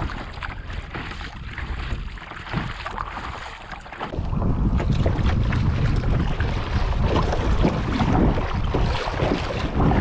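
Wind buffeting the microphone over water splashing around a kayak on a choppy sea. The wind rumble grows much louder about four seconds in.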